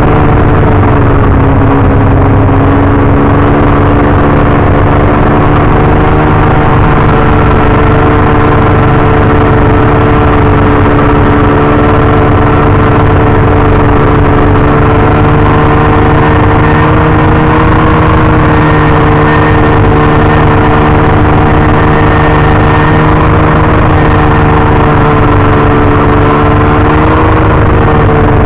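Snowmobile engine running at a steady, even speed, loud and close from on board as it pulls a trail groomer through the snow. Its pitch wavers only slightly.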